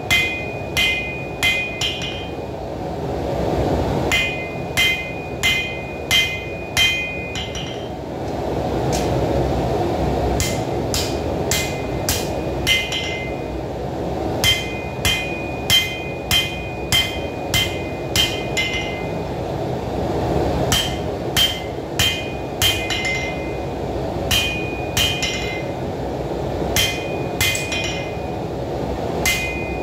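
A hand hammer strikes red-hot knife steel on an anvil in runs of about five to eight blows, roughly two a second, with short pauses between runs. Each blow leaves a short metallic ring. The blade's edge is being hammered thin on one side and then the other. A steady low rushing noise runs underneath.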